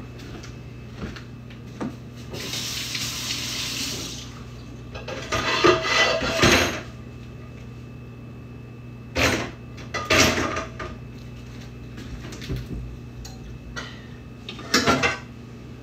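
Kitchen tap running for a couple of seconds, followed by the clatter and knocks of pans and dishes being handled, over a steady low hum.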